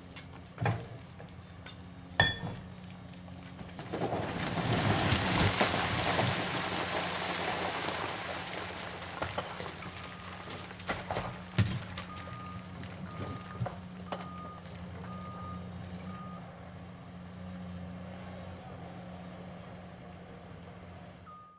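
Heavy diesel earthmoving equipment running steadily with a couple of sharp knocks on concrete, then about four seconds in a large section of the concrete spillway breaks away and crashes down, rubble rumbling and sliding for several seconds. From about ten seconds in, a reversing alarm beeps roughly once a second.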